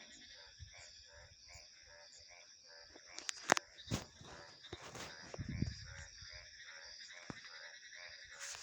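Night chorus of frogs giving short repeated pulsed calls over a steady high trilling of insects. A few sharp clicks come a little before the middle, and a brief low rumble follows soon after.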